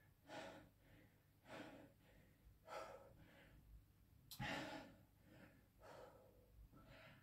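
A man breathing hard from exertion partway through a 50-rep barbell squat set: faint, short, sharp breaths about once a second, with a stronger gasp about four and a half seconds in.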